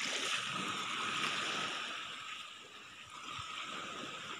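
Small waves washing gently onto a sandy beach, under a steady high hiss that is a little louder in the first couple of seconds and then eases.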